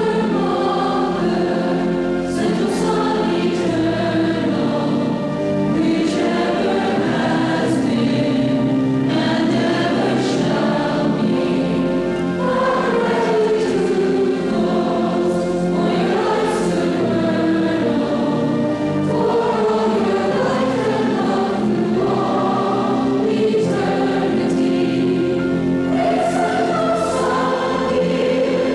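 A group of voices singing a devotional hymn together, with long held notes over a steady low accompaniment.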